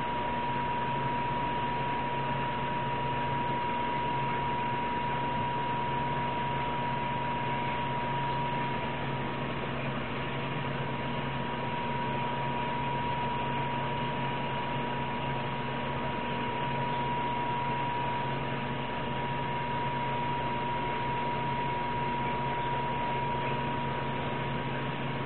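Aquarium pump running: a steady low hum with a constant high whine over an even hiss.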